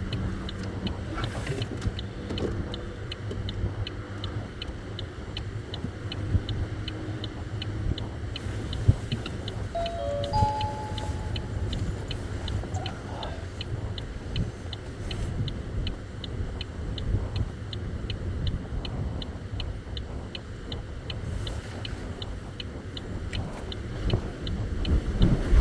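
A car's flasher relay ticking at an even pace, as for turn signals or hazard lights, heard inside the cabin over a steady low rumble of the car. A few short beeps come about ten seconds in.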